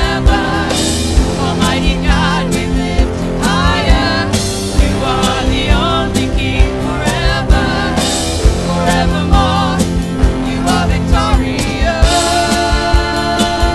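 Contemporary praise band playing a worship song: a singer over drums and band, with the vocal dropping out about twelve seconds in, leaving the band playing on.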